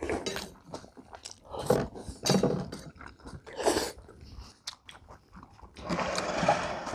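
Close-up chewing and crunching of a mouthful of bibimbap with young radish kimchi, in irregular bites, with a longer noisy stretch about six seconds in.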